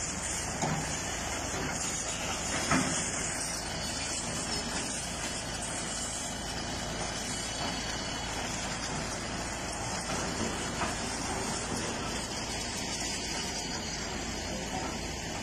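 Heavy diesel machinery running steadily, with a few sharp knocks, the loudest about three seconds in.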